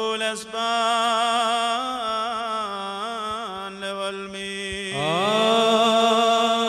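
Syriac-rite liturgical chant: long held sung notes with wavering melismatic ornaments, and a new phrase starting with a rising slide about five seconds in.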